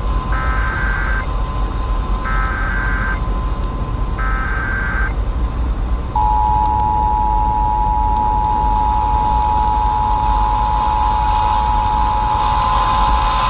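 Emergency Alert System Required Monthly Test over AM radio: three short screeching digital header bursts about a second apart, then the steady two-tone EAS attention signal starting about six seconds in, all over AM reception hiss.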